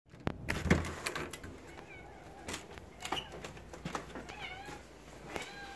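A domestic cat meowing about four times in short wavering calls, begging for food. Sharp knocks and clicks come in between, the loudest in the first second.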